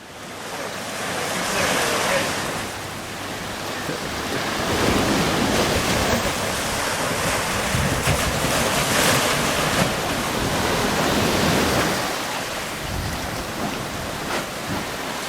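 Ocean surf washing against the shore in slow swells, with wind on the microphone.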